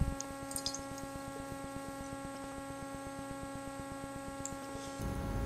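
Steady electrical hum with a buzzing stack of even overtones, with a few faint ticks about half a second in and a louder low rumble coming in near the end.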